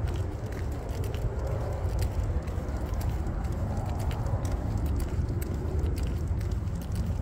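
Footsteps of a person and a dog walking on a concrete sidewalk, heard as faint irregular clicks over a steady low rumble.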